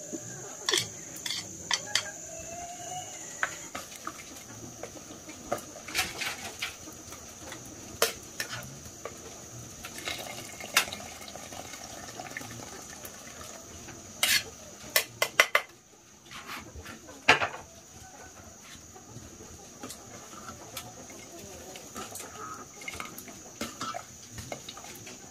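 Kitchen utensils clinking and knocking against pots and dishes in irregular strikes, as in cooking and stirring. Chickens cluck now and then, mostly in the first few seconds, over a steady high-pitched buzz.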